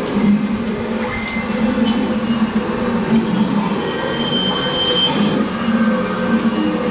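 Small metal-framed hand cart pulled over street pavement: its wheels and frame rattle steadily, with short high squeaks now and then.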